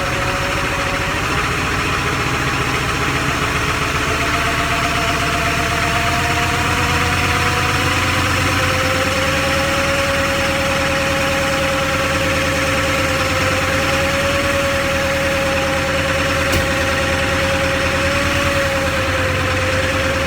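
1997 Ford F350's 7.3 Powerstroke turbo-diesel V8 idling steadily, still cold after a cold start, with a steady whine over the engine note.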